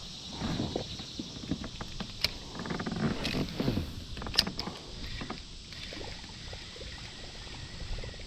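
Kayak on moving water: small sloshes and knocks against the hull, with scattered clicks and ticks from handling the fishing gear, and two sharper ticks about two and four and a half seconds in.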